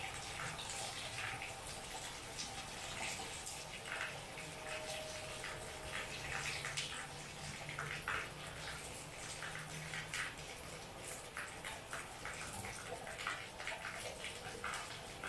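Heavy rain falling steadily, with many close drips and splashes landing irregularly over the even hiss.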